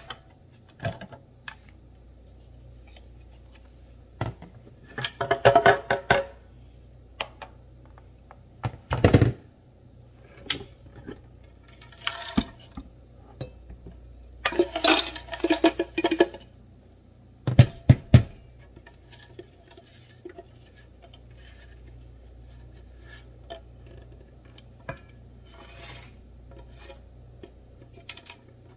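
Crushed ice rattling and scraping inside a plastic blender jar as the jar is shaken, tipped and knocked against its base, in several loud clattering spells a few seconds apart, then light scattered ticks near the end.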